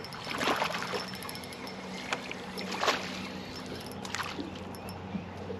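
Small waves lapping against a fishing boat's hull, with a few soft splashes about half a second, three seconds and four seconds in, over a steady hiss.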